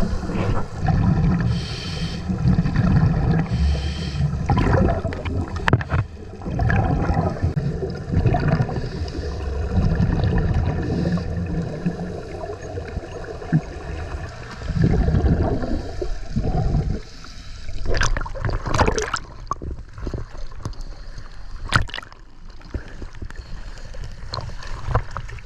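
Water bubbling and gurgling in surges that last a second or two, with a few sharp clicks in the second half.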